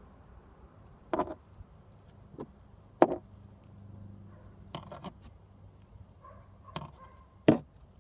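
Hand tools working on electrical wire: several short, sharp snaps and clicks at irregular intervals, the loudest about three seconds in and near the end.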